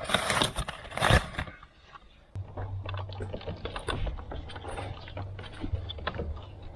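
Hands working parts loose in an engine bay: rustling and scraping at first, then many small irregular clicks and ticks of metal and plastic being handled, over a steady low hum that starts abruptly about two and a half seconds in.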